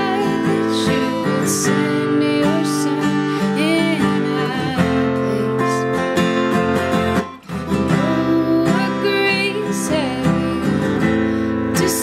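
Acoustic guitar strummed in steady chords, with a short break in the playing a little past the middle.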